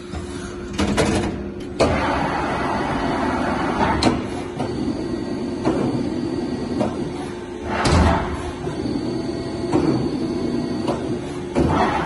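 Mazak HTC 400 horizontal CNC machining centre running, with a steady mechanical hum and a low tone. Sliding and clunking sounds come from the machine, with sharp knocks about two and four seconds in and a rushing swell about eight seconds in.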